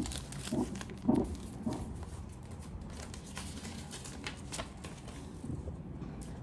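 A few short, soft voice-like sounds in the first two seconds, then faint scattered clicks and rustling as a gift box and its packaging are handled.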